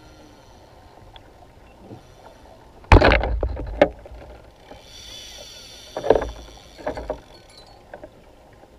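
Waves slapping and splashing against a fishing kayak's hull, with two loud splashes about three and six seconds in, over a steady wash of water.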